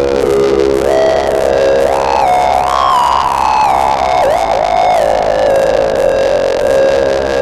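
Dreadbox Erebus 3 semi-modular synthesizer playing a single-note lead line that glides smoothly up and down from note to note, over a steady noisy hiss.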